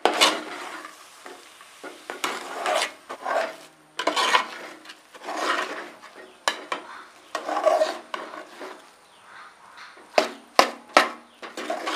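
Metal spoon stirring ground coconut into thick jaggery syrup in a steel pot: repeated scraping swishes about once a second. A few sharp clicks of the spoon against the pot come near the end.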